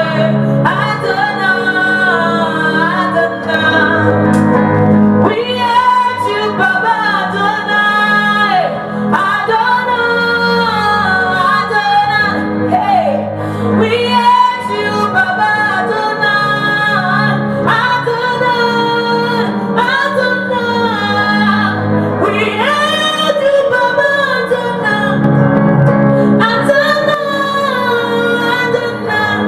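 Worship song: a woman singing in long, gliding phrases over sustained instrumental accompaniment.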